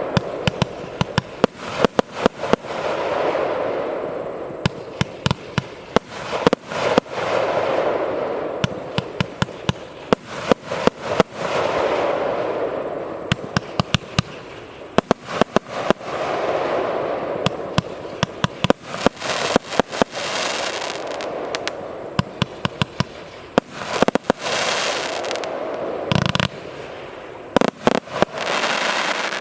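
Consumer fireworks battery (cake) firing shot after shot: quick runs of sharp bangs, each wave swelling into a hissing, crackling haze, repeating every few seconds. The bangs thin out near the end.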